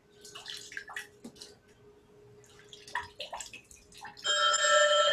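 Water splashing and dripping in small irregular splashes as hands wash forearms in a basin. About four seconds in, a loud, steady, ringing chord of several held pitches starts.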